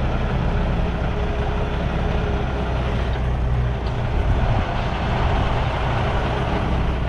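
Semi truck's diesel engine running low and steady as the tractor-trailer backs slowly.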